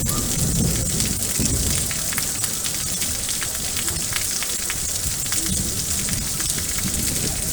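Steady rain falling, with many small drop hits over an even hiss and a low rumble underneath.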